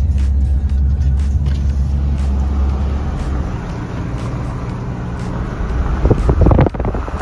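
Car driving on a rough road, heard from inside: a steady low engine and tyre drone that eases off about halfway through. Loud irregular crackling noise starts near the end.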